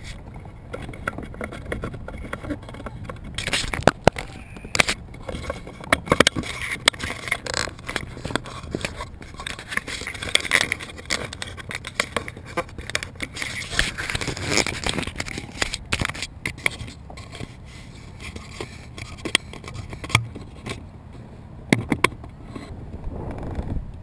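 Handling noise aboard a kayak: scraping and irregular clicks and knocks as the camera and gear are moved and set in place.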